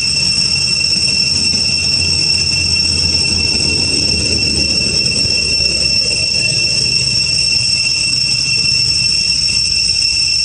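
Insects droning in a steady, piercing high-pitched chorus, with a low rumble underneath.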